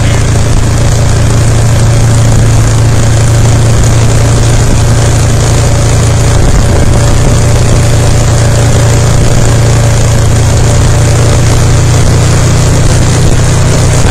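ATV engine running steadily and loud at an even pitch, with no revving or change in speed.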